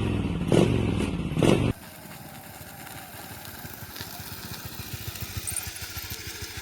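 A loud opening sound with a few sharp hits cuts off abruptly under two seconds in. Then a motorcycle engine runs steadily and slowly grows louder.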